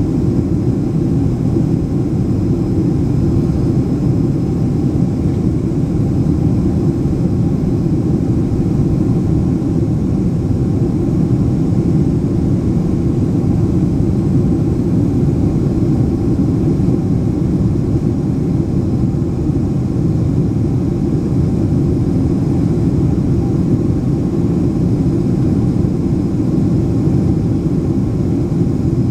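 Steady low roar inside the cabin of a Boeing 767-300ER airliner in flight, from the engines and the air rushing past, with faint steady whines above it.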